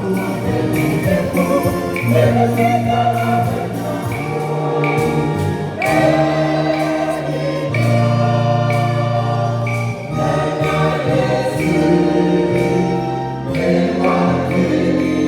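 A church choir singing a gospel song to a band accompaniment with a steady bass and beat.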